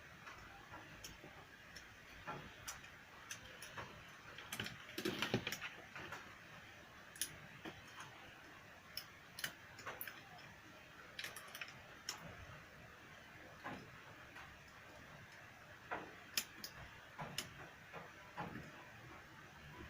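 Irregular light clicks and taps of small tools and plastic parts being handled during a small electronics repair, with a short denser clatter about five seconds in.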